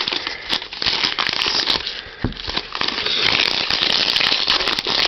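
Trading-card pack wrapper being torn open and crinkled by hand, a dense crackling with many small snaps.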